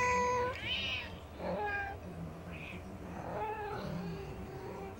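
Domestic cats meowing for food: about four meows with short gaps, the first long and loudest, the later ones shorter and fainter.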